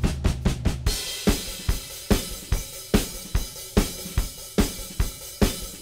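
Background music with a steady drum-kit beat of bass drum, snare and cymbals. About a second in, the dense, bass-heavy drumming gives way to sparser hits, a little over two a second.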